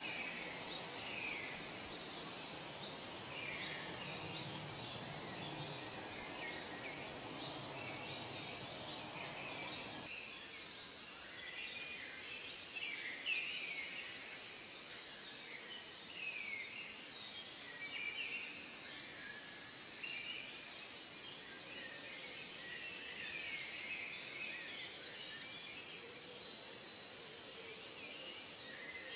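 Many birds chirping and calling in a dense overlapping chorus, with a few high falling whistles in the first ten seconds. A low background hiss underneath cuts off suddenly about ten seconds in.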